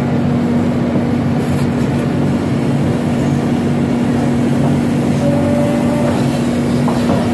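Excavator's diesel engine running steadily under load, heard from the cab, with a brief higher whine about five seconds in.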